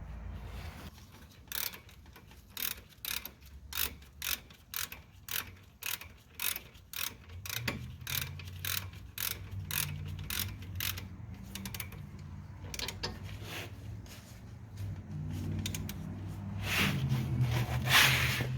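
Hand ratchet wrench clicking in quick repeated strokes, about three a second, while the 17mm caliper bracket bolts are run in. Near the end comes a louder, rougher burst of metal-on-metal noise.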